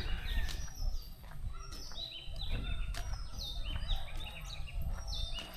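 Several small birds chirping repeatedly in short notes that fall in pitch, over a steady low rumble of outdoor noise, with a few faint sharp clicks.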